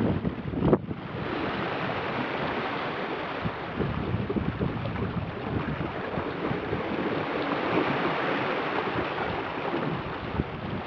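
Wind buffeting the microphone in gusty thumps for the first second, then a steady rush of water: a small sailboat's hull and wake moving fast through choppy water, with wind on the microphone.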